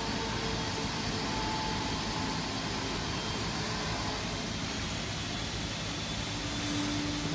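Steady workshop machinery drone and hiss, even in level throughout, with a few faint held tones in it.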